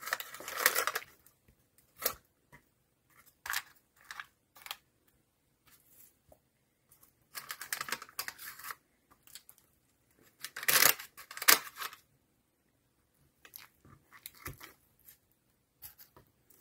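A slotted spatula scraping under brownies in a parchment-lined metal baking pan, with parchment paper rustling and crinkling. It comes in short irregular bursts with quiet gaps. The loudest bursts are right at the start and again about two-thirds of the way through.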